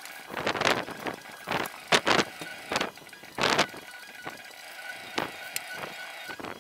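Aerosol spray-paint can hissing in several short bursts, each under half a second, with gaps between them.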